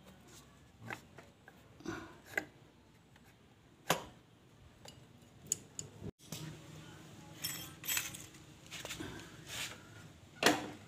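Irregular metallic clinks and taps of hand tools and engine parts being handled while the cylinder block and head of a Yamaha Vega ZR engine are fitted back on, the loudest about four seconds in and just before the end.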